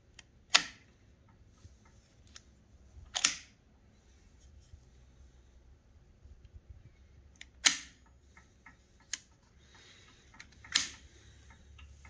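Sharp metallic clicks from the feed mechanism of an MG81Z machine gun as its parts are pressed and moved by hand. There are four loud clicks a few seconds apart, with a few lighter ticks between them.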